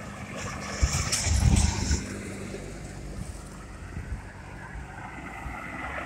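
Cars driving past on a road: a car's engine and tyres swelling as it passes close about one to two seconds in, then a second car approaching near the end. Wind buffets the microphone.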